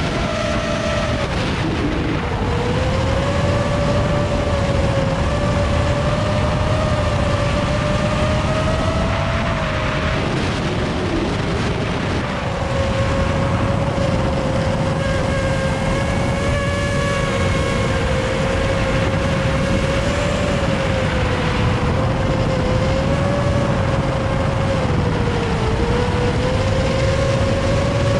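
Quadcopter drone's motors and propellers whining steadily in flight, the pitch wandering slightly and dipping briefly a couple of times as the throttle changes, over a rush of wind noise on the microphone.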